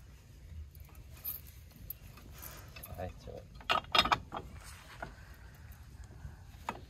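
AL-KO Safety Compact hitch lock being fitted over a caravan's coupling head: scattered metal clicks and knocks, with a pair of loud clunks about halfway through as the lock is pushed on and latched.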